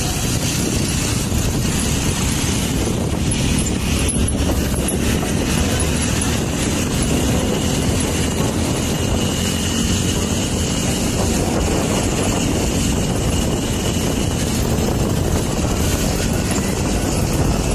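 A motorcycle on the move: steady wind rush and road noise on the microphone, with the engine running underneath.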